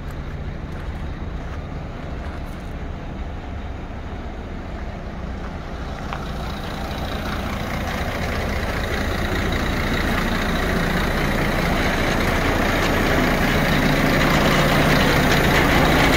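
Scania P114 dump truck's 11-litre straight-six diesel idling steadily, growing gradually louder over the second half.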